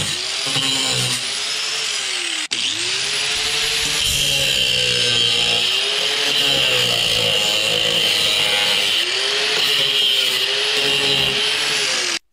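Angle grinder with a cutoff disc cutting through rusted sheet steel of a car body panel; the motor's pitch repeatedly sags and recovers as the disc bites into the metal and eases off. A very brief break about two and a half seconds in.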